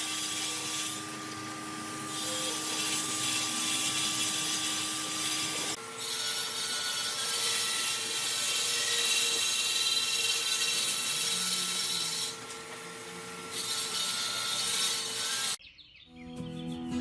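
A power tool working wood: a steady whining hum over a rough rubbing noise, the hum jumping to a different pitch about six seconds in. It cuts off sharply near the end, just before music comes in.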